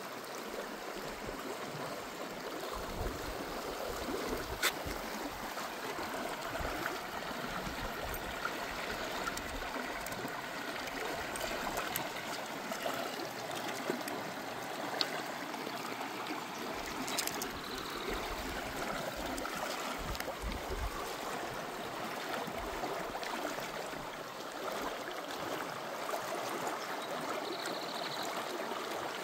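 River water running steadily, an even rushing and gurgling, with a few faint clicks on top.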